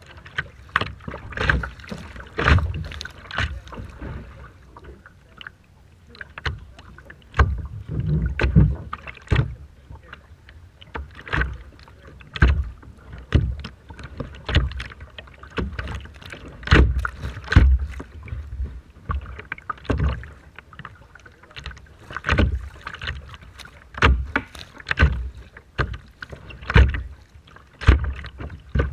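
Rough water splashing and slapping against a small boat's hull, in quick, irregular splashes about once or twice a second.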